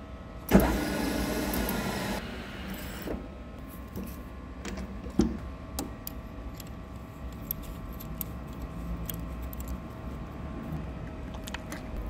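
A loud whir or hiss starts sharply about half a second in and lasts about two and a half seconds. Then come the scattered small clicks and creaks of an M5 spiral tap being turned by hand in a tap wrench, cutting a thread in a hardened steel lathe chuck jaw, with one sharper knock midway.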